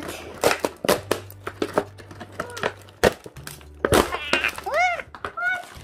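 Plastic and metallic-foil toy packaging crackling and snapping as it is pulled and torn open by hand. A few short, high, voice-like squeals rise and fall about four to five seconds in.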